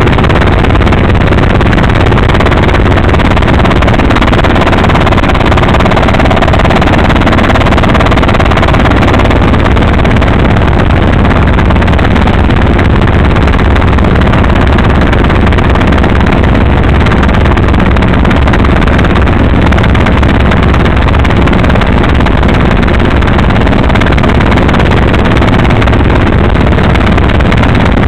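Small helicopter in cruise flight, heard from inside the bubble cockpit: a loud, steady drone of engine and rotor with a low hum underneath and a constant rush of noise.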